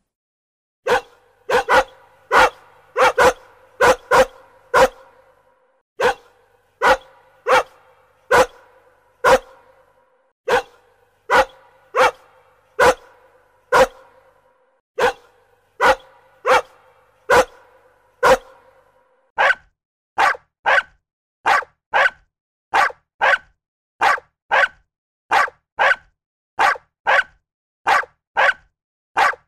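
A dog barking over and over, each bark trailing off in an echo. About two-thirds of the way through the barking changes to a steadier, drier run of sharp barks, about one and a half a second.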